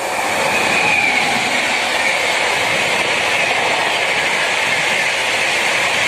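WAP-7 electric locomotive and LHB coaches of a Shatabdi express passing at speed: a loud rush of wheels on rails that builds as the locomotive goes by in the first second, then holds steady as the coaches roll past.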